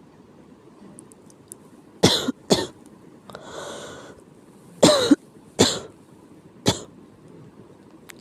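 Coughing from illness, a sick cough: two sharp coughs about two seconds in, a drawn-in breath, then a fit of three or four more.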